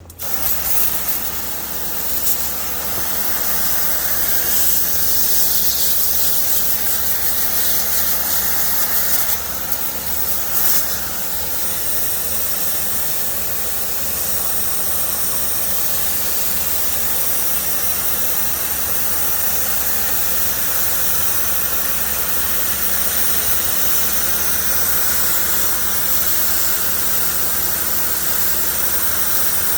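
High-pressure washer spraying water onto an air conditioner's cooling fins: a steady hiss of spray over the low hum of the washer's motor, surging briefly a few times about ten seconds in.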